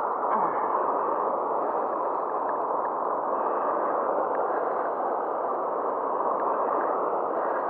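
Steady, muffled rush of turbulent water pouring through and below a river weir, with a few faint scattered clicks.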